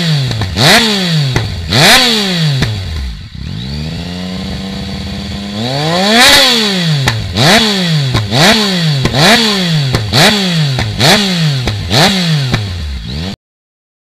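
Yamaha XSR900's inline three-cylinder engine through an aftermarket Arrow exhaust, free-revved at a standstill: repeated quick throttle blips, the pitch shooting up and dropping back each time. A short steadier stretch comes around the middle, then a faster run of blips, about one and a half a second. The sound cuts off abruptly near the end.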